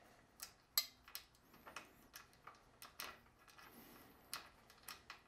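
Faint, irregular metallic clicks and ticks as a small 4 mm Allen bolt is threaded by hand into the e-bike's rear axle hardware, with one sharper click about a second in.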